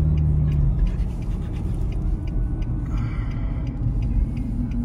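Steady engine and road rumble inside a moving vehicle's cab, with a low drone in the first second.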